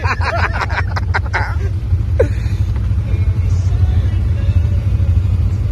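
Side-by-side UTV engine idling with a steady low rumble, voices talking over it for the first second or two.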